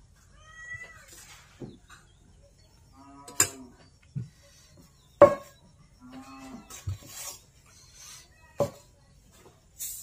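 Three sharp clicks of a metal ladle knocking against a steel pot and plate, the loudest about halfway through, with several short pitched calls in between.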